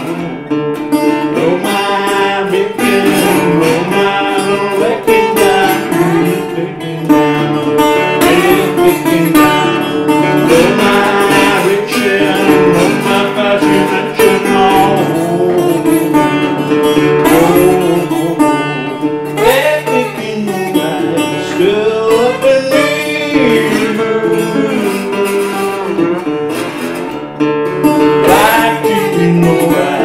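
Metal-bodied resonator guitar picked in a song, with a man singing over it.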